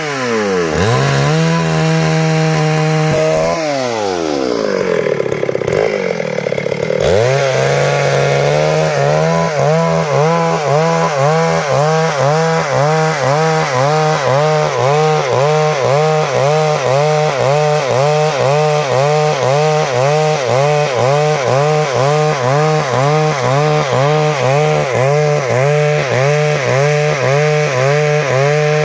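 Stihl MS 382 two-stroke chainsaw sawing wood. Its engine note drops and picks up again twice in the first few seconds, then it runs steadily under load with a regular rise and fall in pitch.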